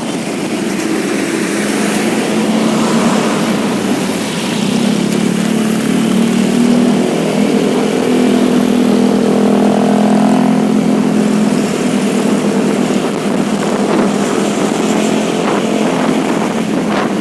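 Road traffic passing, with a steady engine drone from a heavy vehicle that swells in the middle and eases off toward the end.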